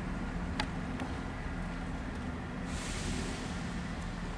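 Class 37 diesel-electric locomotive's English Electric 12-cylinder engine working under power as it pulls a train away, a steady low throb. A sharp click comes about half a second in, and a hiss joins a little before three seconds in.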